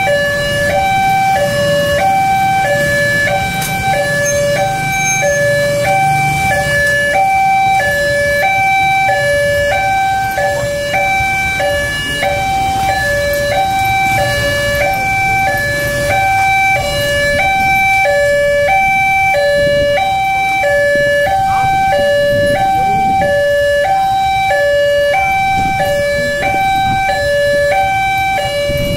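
Railway level-crossing warning alarm sounding with an electronic two-tone alternating signal, repeating steadily: the crossing is closed for an approaching train. Road-vehicle engines run low underneath.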